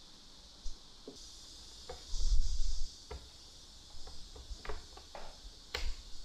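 Scattered light clicks and taps, with a brief muffled rumble about two seconds in that is the loudest sound.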